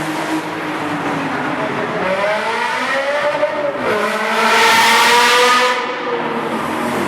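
Sports car engine accelerating hard: its pitch climbs from about two seconds in, dips briefly, then climbs again to its loudest, harshest point before falling away near the end.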